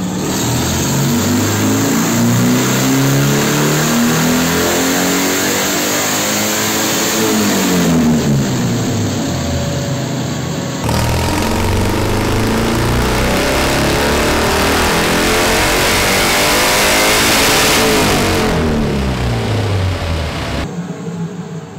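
Modified Ural Wolf's boxer twin engine pulling flat out on a chassis dynamometer, the revs climbing steadily for about eight seconds and then falling away. After a cut, a second pull climbs again and winds down near the end.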